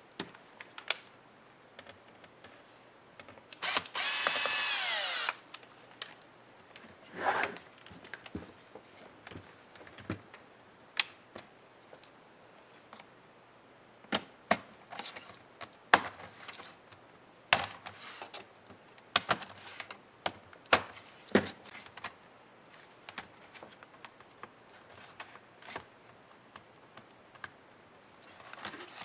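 Small electric screwdriver running for about a second and a half, its motor whine falling in pitch, then a shorter run. After that come scattered light clicks and taps of small screws and parts being handled.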